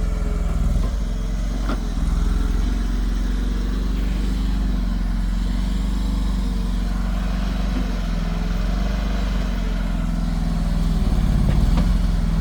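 Mini excavator engine running steadily as it digs a trench, growing a little louder near the end.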